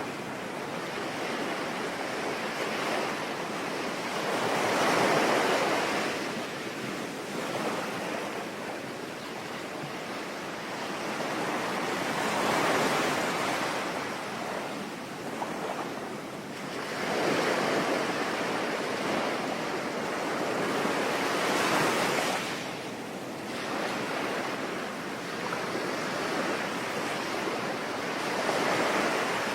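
Sea waves breaking and washing up a shore in five slow surges, about five seconds apart, over a steady hiss of rain.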